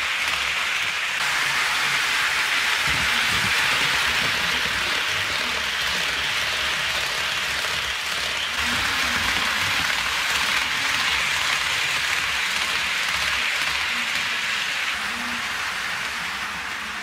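HO-scale model train cars rolling over sectional track close by: a steady hissing rattle of metal wheels on the rails.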